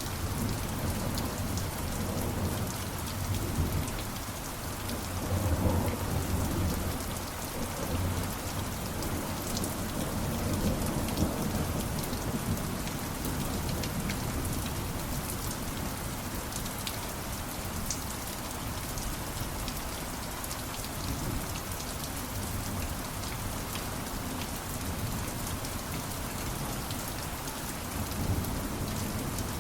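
Steady rain falling, with low rolls of thunder that swell about five seconds in and again near the end.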